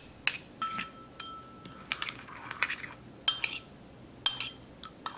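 Metal spoons clinking against a ceramic bowl and each other, with a spoon stirring and scraping through a liquid salad dressing. A series of sharp clinks, one ringing briefly about a second in.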